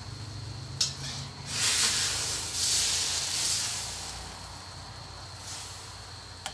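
Hot steel wok hissing loudly with steam as oil-and-fish-sauce-blanched greens are stirred and lifted out, after a sharp clank of the metal spatula about a second in; the hiss fades over the next few seconds.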